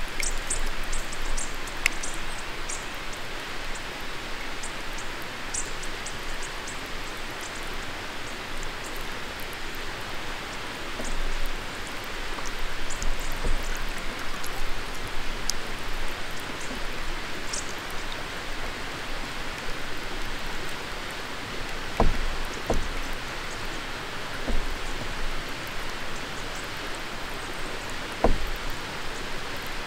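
Steady hiss and trickle of water along a paddled canoe's hull, with small drips and ticks. Two soft knocks come in the last third.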